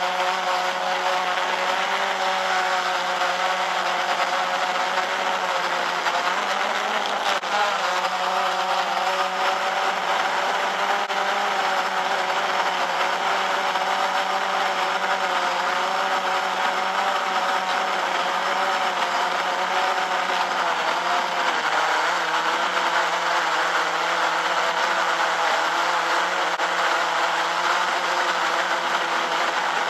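Quadcopter drone's electric motors and propellers, recorded by the drone itself: a loud, steady buzzing whine whose pitch wavers a little as the drone holds and shifts in flight.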